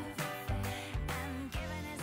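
Background pop music with a steady beat, about two beats a second, slowly fading.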